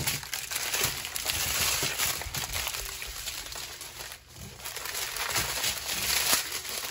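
Strips of small plastic bags of diamond-painting drills crinkling and rustling as they are handled and laid out, with a short lull about four seconds in.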